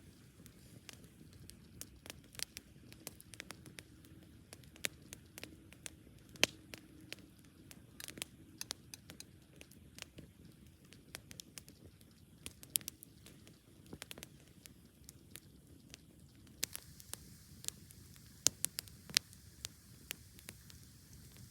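Wood campfire crackling: irregular sharp pops and snaps, several louder ones near the end, over a low steady rumble.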